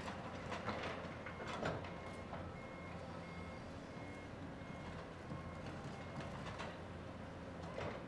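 Diesel engine of a Caterpillar 320C hydraulic excavator running steadily as it digs, with a few scrapes of the bucket in the dirt. From about a second in until near the end, a backup alarm beeps about one and a half times a second.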